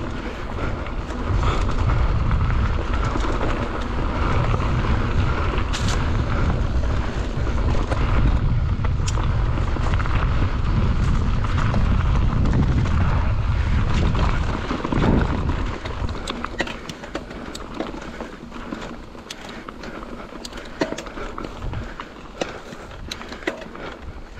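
Wind buffeting the microphone, a heavy low rumble that dies away about fifteen seconds in, leaving scattered clicks and light rattles.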